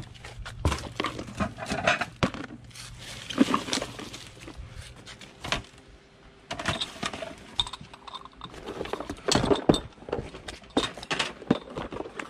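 Rummaging by hand through a cardboard box of mixed secondhand items: irregular rustles, clinks and knocks as things are picked up and moved.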